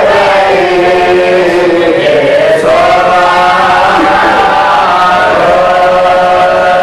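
Men chanting a marsiya, a Shia Urdu elegy for Karbala, in unison. Long held notes slide slowly up and down in pitch.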